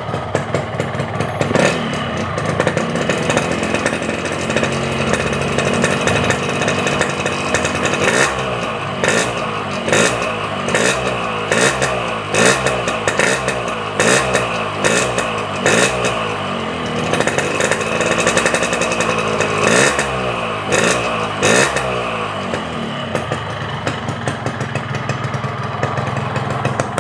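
Yamaha two-stroke motorcycle engine with a Boban C33 aftermarket exhaust, cold and just started. It runs steadily at first, then from about eight seconds in takes a series of short throttle blips, roughly one a second, each revving up and dropping back. It settles again near the end. The owner calls the engine sound normal, neither very smooth nor rough.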